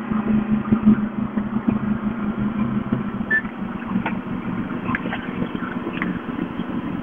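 Formula speedboat's engine running at speed across the water, a steady hum that slowly fades as the boat moves away.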